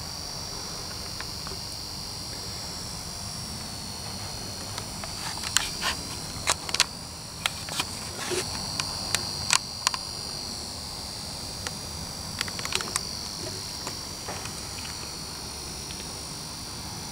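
Quiet room tone: a steady high-pitched whine over a low hum, with scattered light clicks, most of them in the middle of the stretch.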